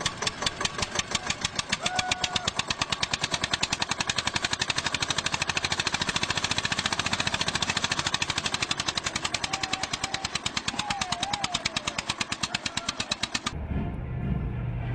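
Heavy machinery knocking rapidly and evenly, many sharp strokes a second. It cuts off suddenly near the end, and a low rumble takes over.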